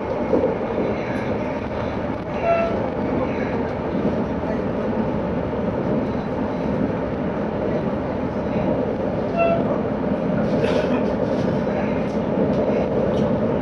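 Interior running noise of an ЭПг (Stadler FLIRT) electric multiple unit travelling at speed: a steady, even rumble and rush of wheels and motors. Two very short beeps sound, about seven seconds apart.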